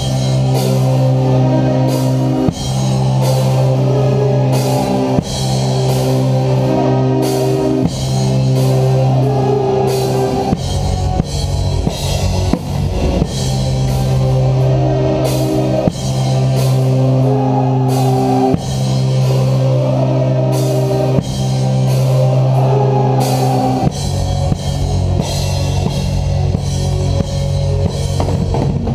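Symphonic metal band playing live, with the drum kit close and prominent: steady drumming and cymbal-crash accents about every two and a half seconds over sustained heavy chords. The drumming gets busier in the middle and again near the end.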